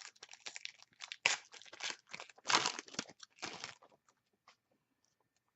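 Foil wrapper of a hockey card pack crinkling and tearing as it is opened by hand, a rapid run of crackles that stops about four seconds in.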